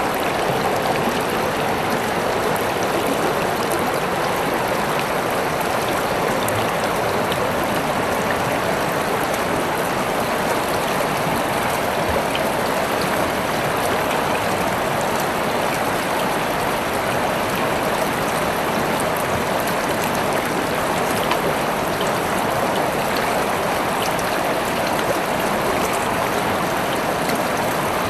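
River water flowing with a steady, even rush, with small splashes and trickles scattered through it.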